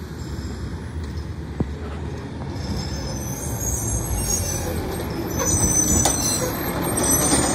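Mack LR side-loader garbage truck's engine growing louder as it approaches and slows. High brake squeals come in from about the middle, and short air-brake hisses sound near the end as it pulls up to the carts.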